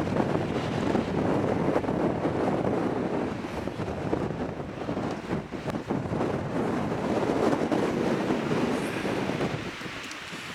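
Strong gusting wind, about 30 miles an hour, buffeting the camera microphone through its windscreen: a dense rumbling rush that swells and ebbs with the gusts and eases near the end.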